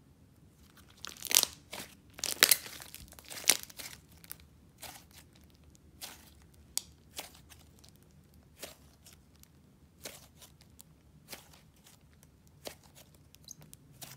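A handful of thick slime being stretched, folded and squeezed by hand, giving sticky crackles and pops. They come densest and loudest from about one to four seconds in, then thin to single pops every second or so.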